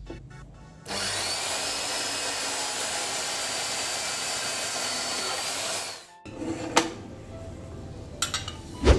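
Portable band saw running and cutting through a metal part clamped in its vise: a steady hiss with a thin high whine that starts about a second in and stops about six seconds in. A few sharp knocks and clanks of metal parts being handled follow, the loudest near the end.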